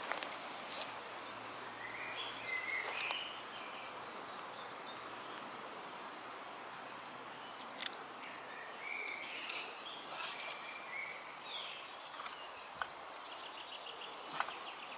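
Birds singing in short warbling phrases against a faint outdoor hiss, with a few soft rustles and sharp little clicks as elm bark is peeled off a young branch by hand.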